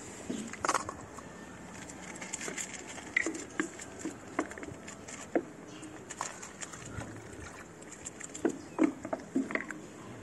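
Cat crunching dry kibble from a plate: irregular sharp crunches in short runs, with pauses when it stops chewing.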